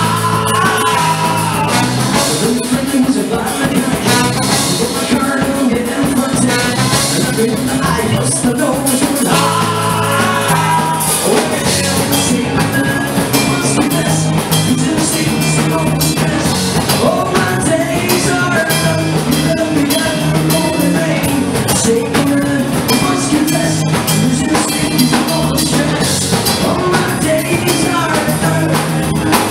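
A live rock band with a ska feel plays loudly and steadily: electric guitars, drum kit, trombone and saxophone, with a man singing.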